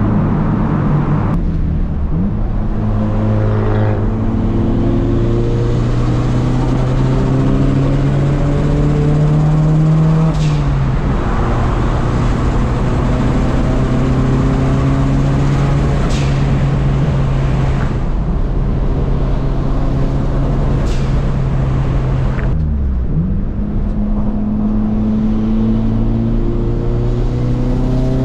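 Nissan S13 Silvia's turbocharged SR20DET four-cylinder engine heard from inside the cabin under way, over steady road noise. The pitch climbs and then drops sharply at gear changes several times, with a long steady stretch at cruising speed in the middle.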